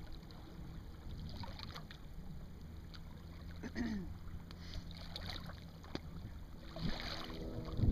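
Steady low rumble of light wind on the microphone and water moving along a small boat's hull, with a faint voice near the end.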